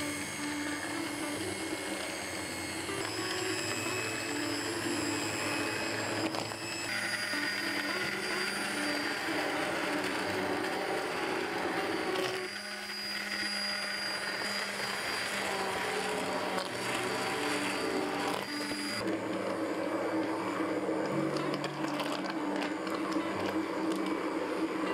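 Immersion blender running in a pot of hot red lentil and carrot soup, puréeing it until smooth. The motor whirrs steadily and the sound shifts a few times.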